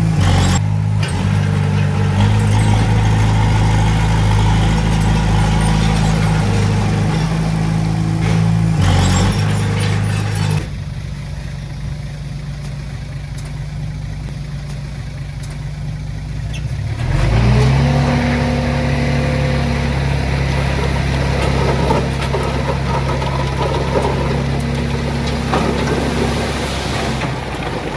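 Diesel engine of heavy earthmoving machinery running steadily. About ten seconds in the sound drops sharply. Near seventeen seconds an engine revs up and settles into a steady run again.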